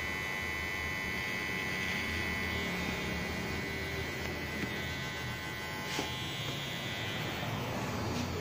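Enchen Hummingbird cordless hair clipper running, its motor and blade giving a steady buzz, with one light click about six seconds in.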